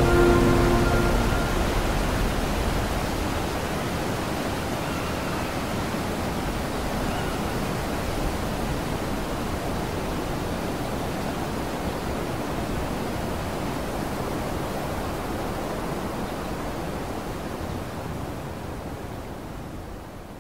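The last notes of background music, then a steady rushing noise that fades out near the end.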